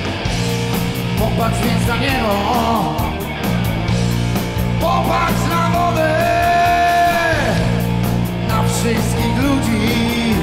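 Live blues-rock band playing an instrumental stretch of a song. A lead electric guitar line with bent notes and one long held, wavering note near the middle rides over bass and drums.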